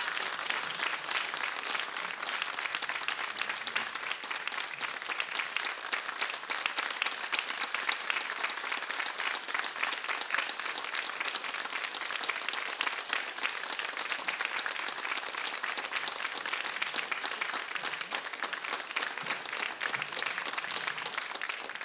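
A concert audience applauding: a steady, dense clatter of many hands clapping.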